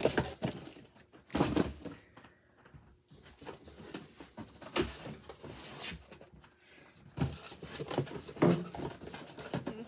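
Rustling and light knocking of cardboard and plastic packaging as boxed collectible figures are handled and unpacked, in irregular spells.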